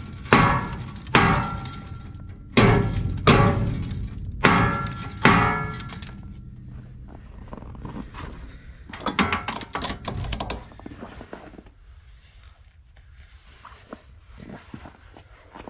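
A short-handled 8–10 lb sledgehammer striking the steel frame of a salt spreader to bend the damaged frame back into shape. Six heavy ringing blows in the first five seconds or so, then lighter metallic clattering about nine to ten seconds in.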